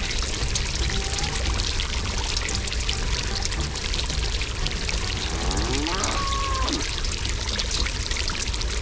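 Steady rush of pouring water, with a crackly spatter. A brief sliding tone sounds about six seconds in.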